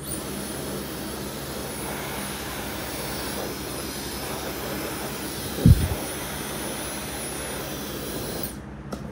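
Dyson Supersonic hair dryer running: a steady rush of blown air with a thin, high-pitched whine from its fast motor, starting right away and switched off about eight and a half seconds in. A brief low thump, the loudest moment, comes a little past halfway.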